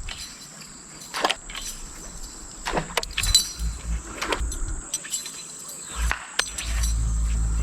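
Scattered light clinks and knocks of gear being handled in a small boat, with bursts of low wind rumble on the microphone, the longest near the end.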